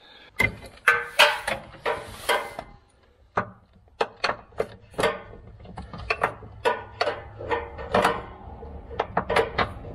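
Hand ratchet on a long socket extension clicking and knocking as it works a 15 mm rear cradle bolt loose, in uneven runs of clicks with a few sharper knocks.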